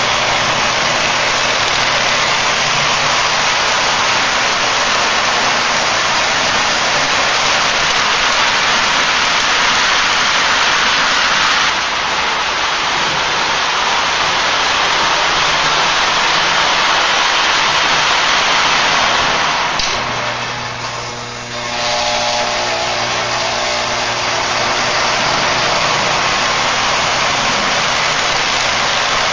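Lionel prewar 1668 O-gauge streamlined steam locomotive and its freight train running on FasTrack: a steady whir of the motor and rumble of wheels on the track. The sound eases for a couple of seconds about twenty seconds in, when a low hum comes through.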